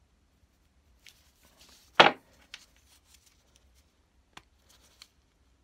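Small clicks and taps of needle-nose pliers working a little brass hinge piece, with one louder knock about two seconds in.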